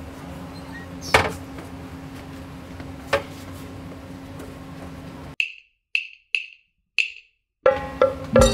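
Sharp, short wooden knocks, like a wood block being struck: two over a steady background hum, then four in a row against dead silence, about half a second apart, with more knocks as the background comes back near the end.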